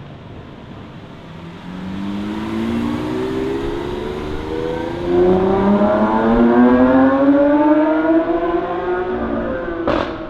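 Lamborghini Aventador SVJ's 6.5-litre V12 accelerating, its engine note rising steadily in pitch and getting louder about halfway through. Near the end a sharp crack is heard and the pitch drops.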